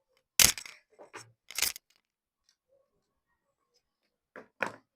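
Sharp clicks and clatters of small hard parts and tools being handled while wires are screwed onto a horn push-button's terminals: a loud clatter about half a second in, a few more over the next second, then two short clicks near the end.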